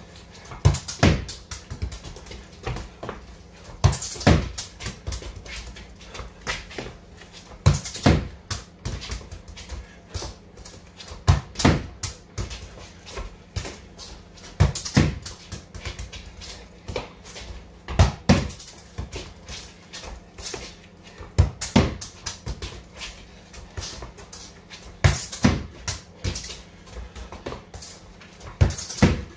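A football being struck hard in passing drills in a concrete-floored garage, a sharp thud about every three and a half seconds with lighter touches of the ball between.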